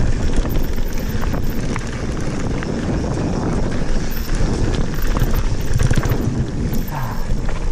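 Wind buffeting the microphone while a Santa Cruz Bronson mountain bike rolls down a loose gravel trail, its tyres running over small stones with scattered clicks and rattles from the bike.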